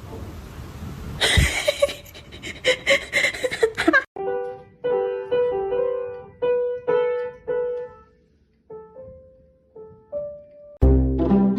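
Piano notes struck one at a time in a slow, uneven run, each note dying away, with a few pauses between them. Before the notes there is a hiss and a busy stretch of clattery noise. Loud music with a heavy bass cuts in near the end.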